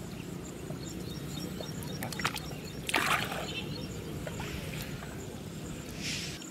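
Shallow floodwater splashing and sloshing as hands push a bamboo stake and fishing net down into a flooded rice paddy. The loudest splash comes about three seconds in and a smaller one near the end, over a steady low background noise.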